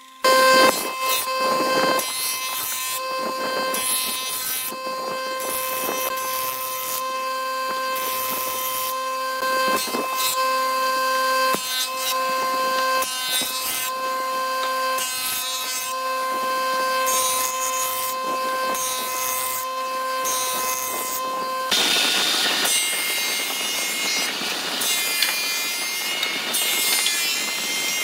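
Woodworking planing machines cutting a thick timber board: a jointer's steady whine that drops out and comes back every second or two as passes are made. About 22 seconds in it changes to a thickness planer's rougher cutting noise as the board is fed through.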